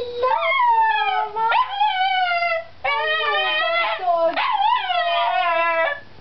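Chihuahua howling in two long drawn-out howls with a short break between them, the pitch mostly sliding downward with brief upward jumps along the way.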